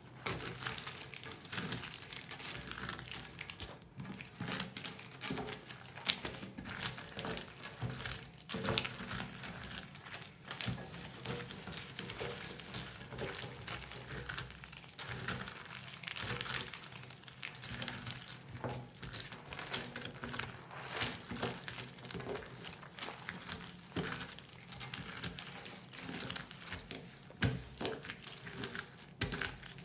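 Jigsaw puzzle being wrecked by hand: a dense, continuous run of crackling, crunching and clicking as the interlocked pieces are torn apart and crumpled.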